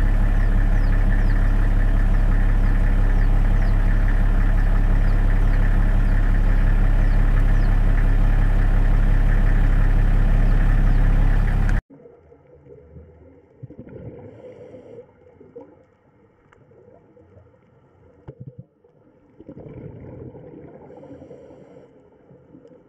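A loud, steady, low engine-like drone, like an idling motor, that cuts off abruptly about twelve seconds in. After it come only faint, irregular low rumbles.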